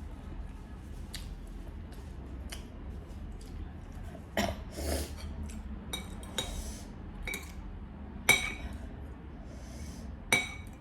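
Eating utensils clinking against a dish: scattered light clicks and soft scrapes, with two sharp ringing clinks about eight and ten seconds in.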